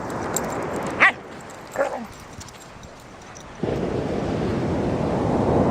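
Shikoku dog giving two short, high yips about a second apart. Then, about two-thirds of the way in, a loud, steady rushing noise sets in suddenly.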